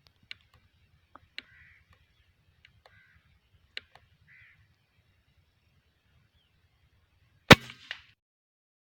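Air rifle firing a single shot about seven and a half seconds in, a sharp crack, followed less than half a second later by a second, smaller smack as the pellet strikes a green pigeon. Before it, only a few faint scattered clicks and short chirps.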